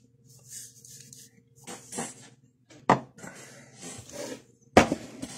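Handling noise of a phone held close to the microphone: rubbing and scraping with sharp knocks about three seconds in and again near the end, over a faint steady hum.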